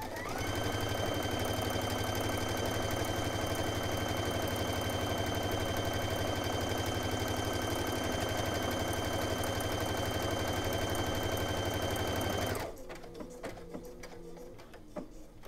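Brother Innovis VQ2 computerised sewing machine stitching an automatic buttonhole through denim, its needle running at a steady fast rate. It stops suddenly about twelve and a half seconds in.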